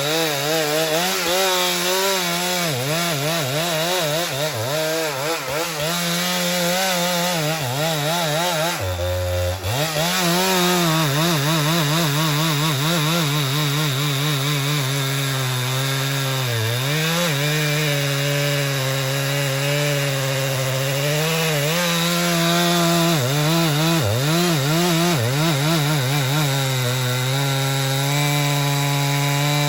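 Two-stroke chainsaw cutting into a large meranti trunk, its engine pitch wavering up and down as it labours in the cut. It drops briefly to a low idle about nine seconds in, then revs back up.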